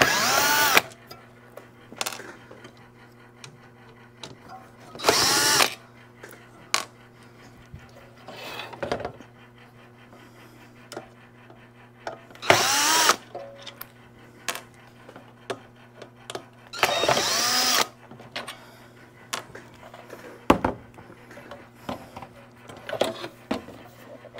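Cordless drill-driver backing screws out of a car audio unit: four short runs of about a second each, the motor's pitch rising and falling within each run. Light clicks and knocks of screws and handling come between the runs.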